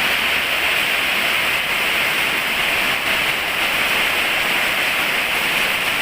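Steady rain falling, a dense even hiss that holds constant throughout.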